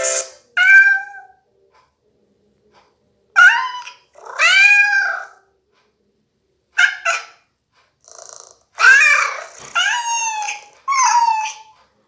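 A phone ringtone made of recorded cat meows, played through the Microsoft Lumia 535's loudspeaker: about eight meows, each rising and then falling in pitch, with short silent gaps between them.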